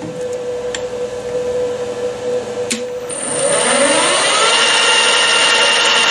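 Metal lathe running while turning aluminium, a steady mechanical hum. About three seconds in there is a sharp click, then a motor whine rises in pitch over about a second and settles into a louder, higher steady note.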